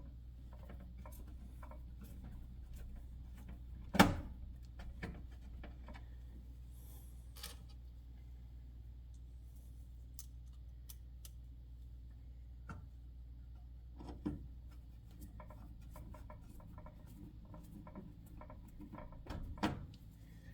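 Small clicks and taps of hands fitting small screws and a circuit board into the control panel of an electric range, with a few louder knocks, the sharpest about four seconds in, over a low steady hum.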